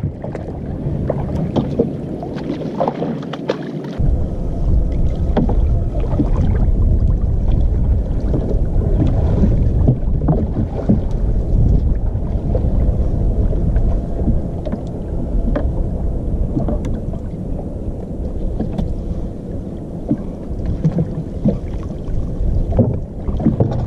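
Water lapping against a small wooden rowing boat as fishermen haul a monofilament fishing net aboard by hand, with scattered small knocks of net, floats and hands against the hull over a steady low rumble that gets stronger about four seconds in.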